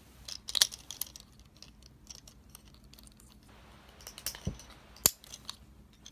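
Plastic Transformers action figure being handled and transformed: scattered clicks and snaps of its plastic joints and parts, with small handling rustles between them. The sharpest click comes about five seconds in.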